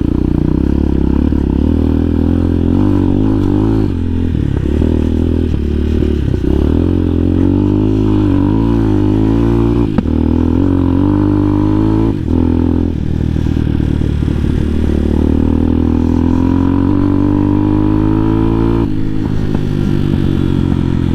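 2020 CSC TT250's single-cylinder four-stroke engine running as the bike is ridden, its pitch rising and falling with the throttle, with a couple of sharp knocks about ten and twelve seconds in.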